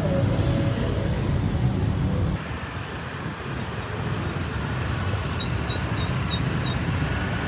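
Road traffic and motorbike engines heard while riding pillion on a motorbike taxi, with a heavy low rumble for the first two seconds, then a lighter steady traffic hiss after a sudden change. A few faint short high beeps sound near the end.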